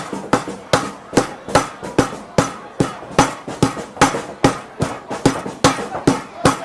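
Steady pounding at a street food stall: heavy, evenly spaced strikes, about two and a half a second, each with a short ring.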